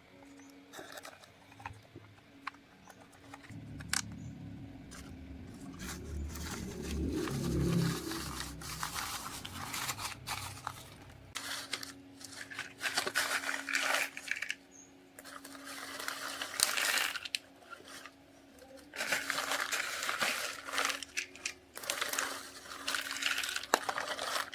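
Loose corn kernels pouring and rattling in repeated rushes of a second or two, with scattered clicks. A low engine rumble swells a few seconds in, and a steady engine hum sets in about halfway through.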